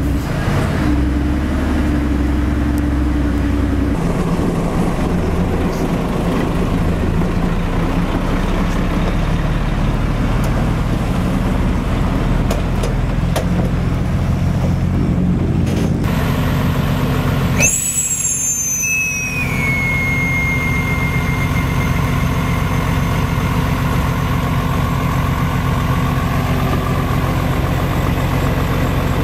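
Heavy diesel engine running steadily, its note shifting a couple of times. A little past halfway a brief high-pitched squeal falls in pitch and holds a steady tone for about two seconds.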